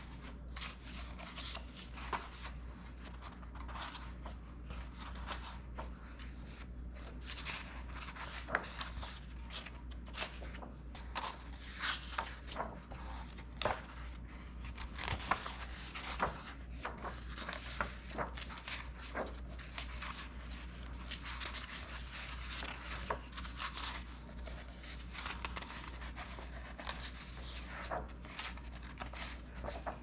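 Paper pages of a book being turned one after another by hand, rustling and flapping with many short, crisp crackles. A steady low hum runs underneath.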